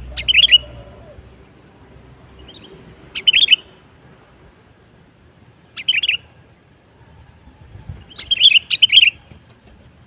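Sooty-headed bulbul (kutilang) calling: short phrases of quick, bubbling notes about every three seconds, the last a longer double phrase, used as a lure call for wild bulbuls.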